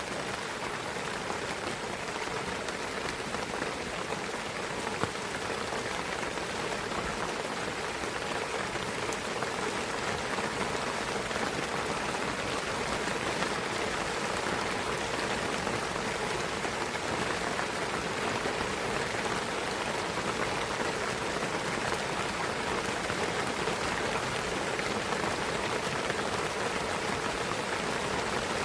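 Steady rain falling through a pine forest, a continuous patter of raindrops.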